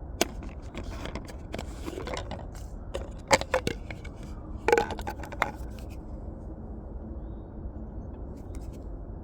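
A few sharp clicks and scrapes, the loudest two about three and a half and five seconds in, over a steady low rumble; the clicks stop about six seconds in.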